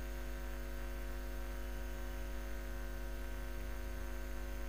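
Steady electrical mains hum: an unchanging low drone with a stack of higher overtones.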